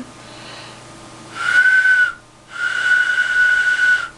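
Freshly shaped clay duck whistle blown twice: a short note, then a longer one, each a clear steady high whistle, after a faint breathy hiss. The newly cut air channel now lets it whistle.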